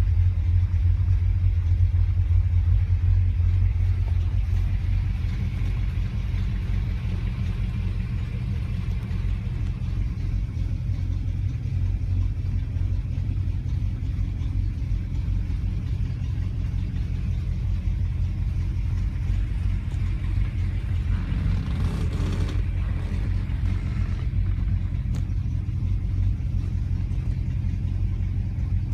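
1957 Chevrolet Bel Air engine idling, a steady low rumble heard from inside the cabin. A brief louder noise cuts across it about three-quarters of the way through.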